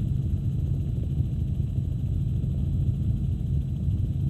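Helicopter engine and rotor noise heard from inside the cabin, a steady low rumble.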